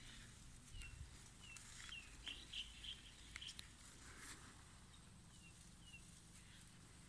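Faint bird calls: short, high chirps that slide downward in pitch, a quick run of them in the first three seconds and two more a little past the middle, over quiet outdoor background noise.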